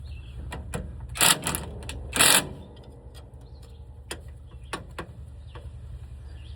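Two short bursts of a power wrench loosening the steering shaft's pinch bolts, a second or so apart, followed by a few light metallic clicks, over a steady low hum.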